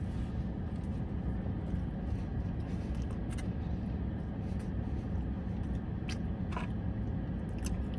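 Steady low rumble with a few short clicks scattered through it.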